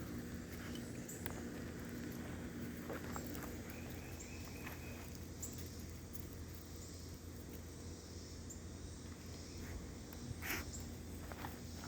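A small animal chewing vegetables: scattered faint crunching clicks, one louder cluster near the end, over a low steady hum.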